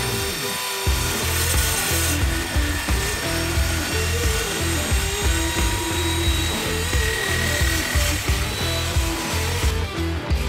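Background music with a beat and a stepping bass line, over an Evolution circular saw on a guide rail cutting steel: a dense high hiss with a thin whine that stops near the end.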